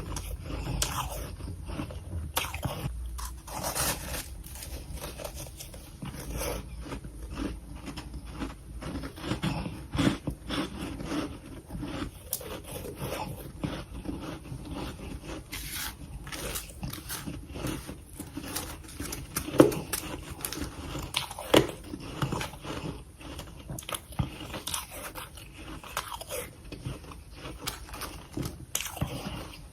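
Close-miked biting and chewing of freezer frost: a dense run of soft, irregular crunches and scrapes, with a couple of sharper, louder crunches about two-thirds of the way through.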